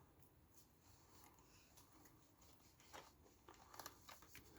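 Near silence, with a few faint, short clicks in the last second and a half as a small spacer and the steering parts of an RC truck are handled.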